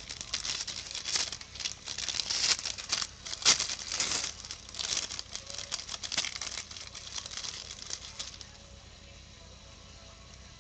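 Gold foil wrapper of a Panini Gold Standard basketball card pack being torn open and peeled back by hand, crinkling and tearing in rapid crackles until about eight seconds in, loudest about three and a half seconds in.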